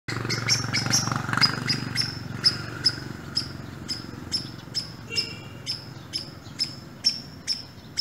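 Tree squirrel giving a long series of short, sharp, high-pitched chirps, about four a second at first and slowing to about two a second. A low rumble of passing traffic fades out over the first few seconds.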